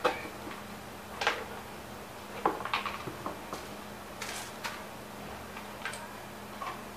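Irregular light clicks and clinks of small metal parts handled by hand: a floorboard mounting adapter, spacer and pin being fitted and tried against each other. About ten sharp knocks, loudest around a second in and again near the middle.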